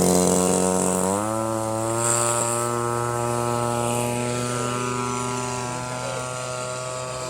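Large radio-controlled model airplane flying at full throttle just after take-off, its engine a steady droning tone that steps up slightly in pitch about a second in. The sound slowly fades as the plane climbs away.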